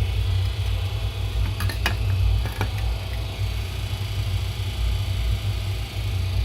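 Mazda 6 GG on the move, with steady road rumble and three sharp knocks close together about two seconds in from the front suspension. The owner puts the knocking down to a worn ball joint and dead rubber bushings (silent blocks).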